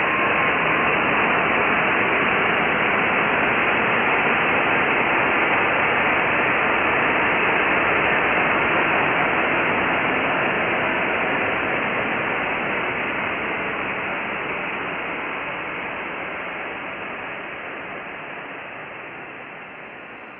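Dial-up modem connection sound slowed down 1000%, heard as a steady static-like hiss with a faint tone at the very start. It fades out gradually through the second half.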